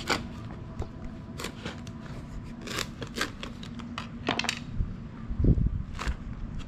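Knife cutting through a durian's tough spiky husk on a wooden cutting board: a series of sharp cracks and crunches, with a louder low thump about five and a half seconds in as the husk is split open.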